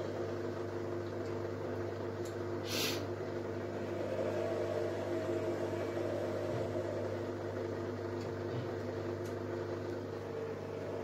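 Zoppas PMV1208B front-loading washing machine in its spin cycle: a steady motor hum and whine as the drum spins, with a brief hiss about three seconds in.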